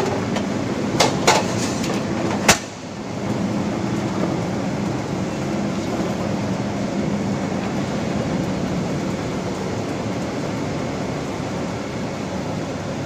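Roll forming machine for pallet racking profiles running, a steady mechanical noise with a low hum. A few sharp metal clanks come in the first three seconds, the loudest about two and a half seconds in.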